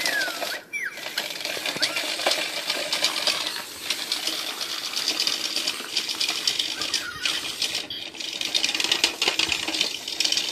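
Battery-powered Little Live Pets toy mouse running in its plastic track set, its small motor and wheels making a steady, fast rattling clatter. A few short high squeaks come through near the start and again about seven seconds in.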